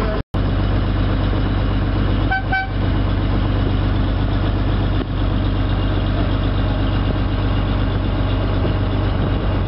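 Riverboat engine running steadily with a low hum. About two and a half seconds in there is a short horn toot.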